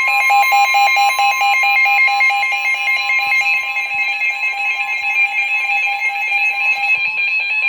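Emergency Alert System attention signal: a loud, steady electronic alert tone over a rapidly pulsing buzzy tone, marking the start of a new severe weather warning broadcast.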